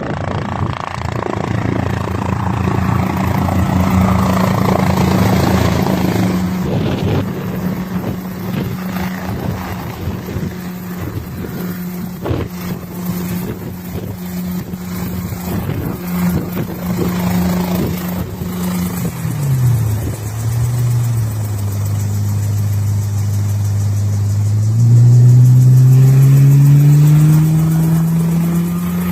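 Helicopter engine and rotor running with a steady pitched drone. About two-thirds of the way through the pitch drops sharply, holds low for several seconds, then climbs back up as the engine speeds up again.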